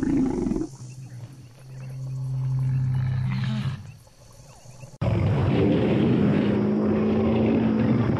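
Film sound-effect calls of a Stegosaurus: a long, low, steady bellow, then after an abrupt cut about five seconds in, a louder, rougher call with a higher held tone.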